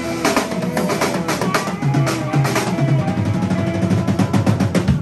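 Live rock band playing an instrumental passage on drum kit, electric and acoustic guitars and bass, with a run of quick drum hits that come faster toward the end over held guitar notes.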